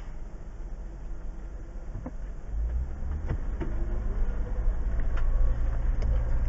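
2015 Jeep Wrangler Rubicon's 3.6-litre V6 running as the Jeep crawls along a dirt trail, heard from inside the cab as a low rumble that grows louder about two and a half seconds in. A handful of sharp knocks and rattles come through as it rolls over the ground.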